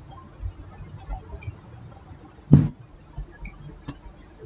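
A few faint computer mouse clicks over low room noise, with one louder short knock about two and a half seconds in.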